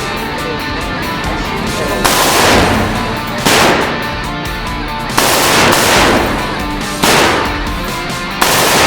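Five loud single gunshots spaced about a second and a half apart, each with a trailing echo, over background music.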